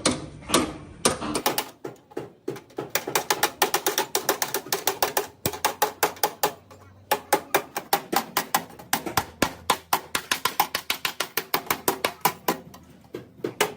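Rapid hammer blows on car-body sheet metal, about five or six strikes a second, as in panel beating. The strikes pause briefly about seven seconds in.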